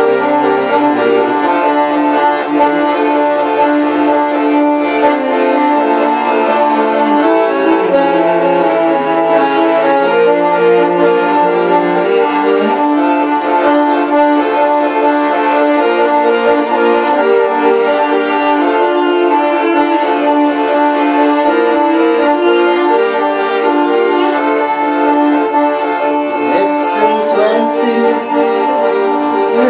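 Piano accordion and cello playing a folk song together: the accordion holds steady chords while the bowed cello moves between lower notes beneath it.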